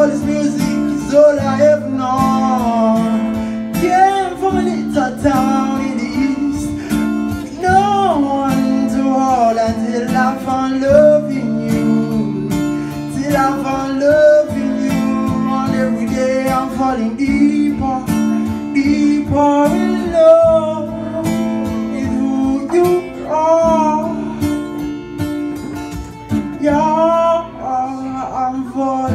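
Acoustic guitar strummed with a man singing over it, his voice sliding through melodic runs.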